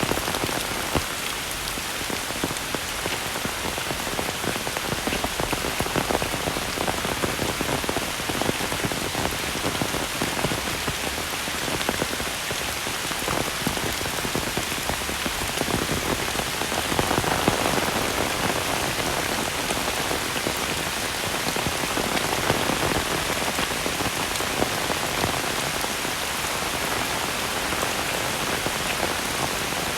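Heavy rain falling steadily, a dense patter of drops, swelling slightly about seventeen seconds in.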